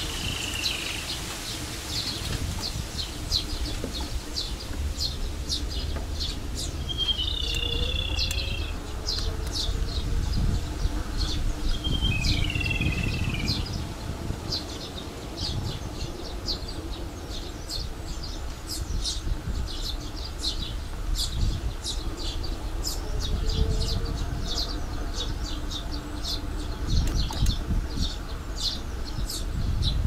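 Birds chirping and calling in park trees: many short high chirps throughout, with a few falling warbled calls near the start, around eight seconds in and around twelve seconds in. Under them runs a low, uneven rumble of wind and tyres from the moving bicycle.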